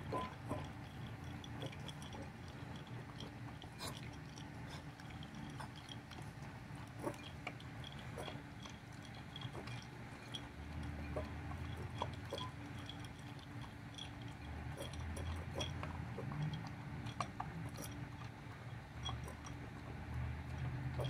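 Puppy lapping water from a plastic bowl: irregular small wet clicks and splashes. A steady low hum runs under it.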